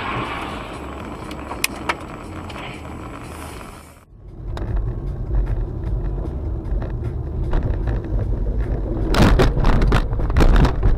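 Dashcam audio of a car driving on a snowy, icy road: steady road and engine rumble heard from inside the cabin. About four seconds in it changes abruptly to a louder, lower rumble, and a burst of knocks and scraping comes near the end.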